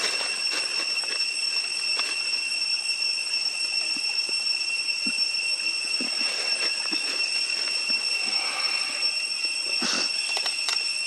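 Steady, high-pitched insect drone holding two even pitches, with faint scattered clicks and rustles.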